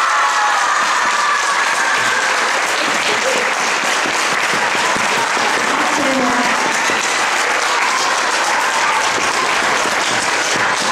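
Large audience applauding steadily, with voices calling out over the clapping, most clearly in the first couple of seconds.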